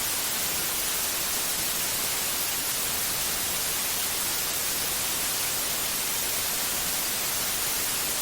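White noise: a steady, even hiss, brighter in the high end, used as a sleep sound for soothing a colicky baby.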